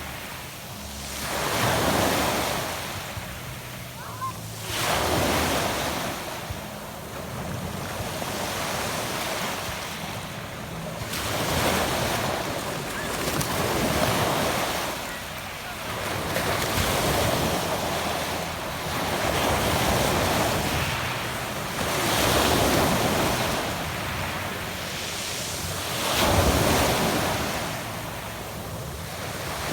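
Adriatic Sea waves breaking on a pebble beach and washing back, the surf swelling and ebbing in repeated surges every few seconds.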